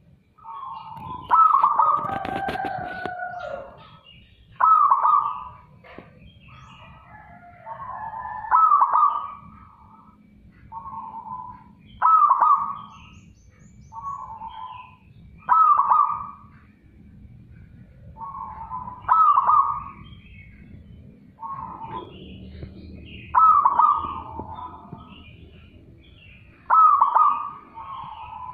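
Zebra dove (perkutut) cooing: a loud, clear, rhythmic coo phrase repeated about every two to three seconds.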